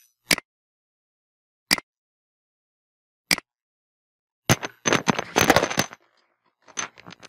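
Computer mouse clicking: three sharp single clicks about a second and a half apart, then a quick clatter of clicks and knocks lasting about a second and a half, with a few more clicks near the end.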